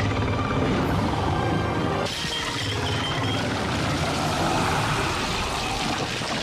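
Designed dragon sound effect: a dense, continuous layered sound that changes character abruptly about two seconds in.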